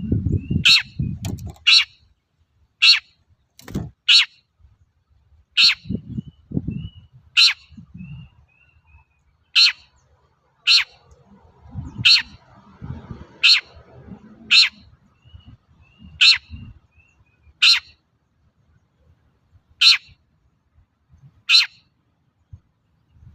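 Long-tailed shrike (cendet) calling: loud, short, harsh notes repeated every one to two seconds, with soft short chirps in between. Low thumps sound at times underneath.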